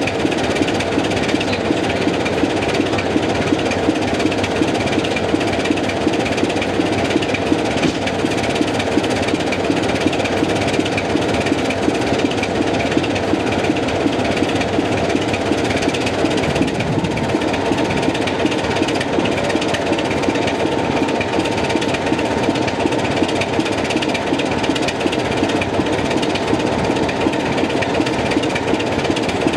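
Heritage British Rail diesel locomotive's Sulzer engine idling steadily, with a fast, even pulse. A faint steady whine joins just past halfway.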